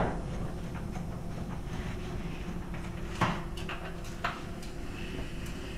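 A few light knocks and clicks, as of parts being handled, over a steady low workshop hum; the sharpest knock comes about three seconds in, with a softer one about a second later.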